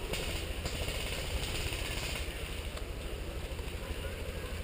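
A steady, fluttering low rumble on the microphone, with a few faint ticks.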